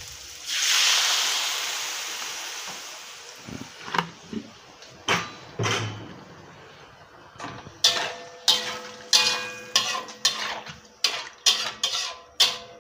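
Water hitting a hot wok of frying pork fat: a loud hiss bursts up about half a second in and dies away over a few seconds. Then a metal spatula scrapes and clanks against the wok, the strokes coming faster and ringing briefly in the second half.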